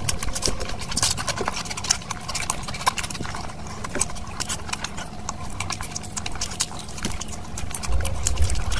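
Close-miked eating sounds: chewing with many irregular wet mouth smacks and clicks, with fingers squishing through curry and rice on the plate.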